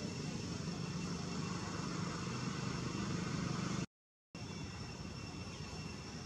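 Steady outdoor background noise, a low rumble with hiss, cut to silence for about half a second at an edit roughly four seconds in, then resuming slightly quieter.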